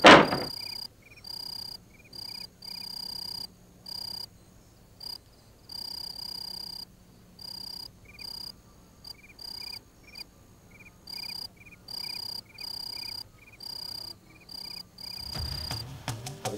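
Crickets chirping at night: a steady high trill that starts and stops in pulses of uneven length, with a second, quicker chirping in short runs beneath it.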